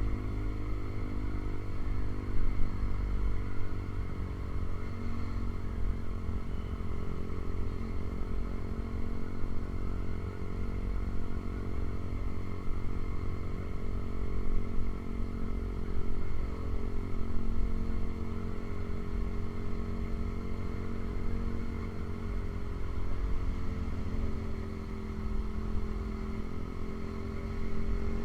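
Honda CB150R's single-cylinder engine running steadily through a Ronin aftermarket exhaust, its pitch drifting slowly up and down with a deep rumble.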